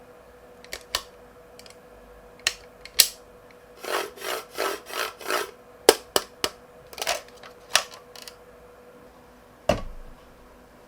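Marbles clacking and rolling along a wooden marble run: scattered sharp clicks, a quick series of about five rattling pulses in the middle, and one heavier knock near the end.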